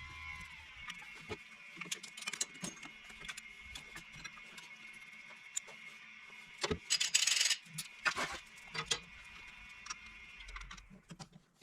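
Tools and metal parts clinking and knocking as the transmission valve body is fitted back into a John Deere 550 dozer, with a steady high whine behind that stops near the end. A louder burst of noise comes about seven seconds in.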